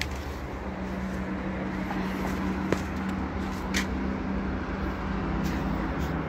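Steady rumble of road traffic from a highway below, with a vehicle's engine hum held for a few seconds in the middle and a couple of light clicks.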